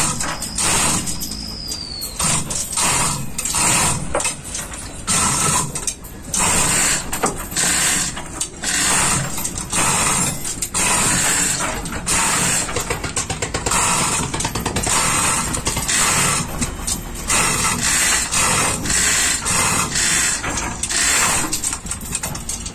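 Manual chain hoists lowering a heavy engine on chains: rapid, irregular ratchet clicking and rattling chain links, with a few short pauses.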